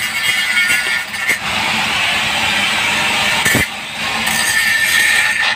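Handheld angle grinder grinding the weld on a steel pipe joint, steady and loud, with a brief break a little past halfway before it runs on.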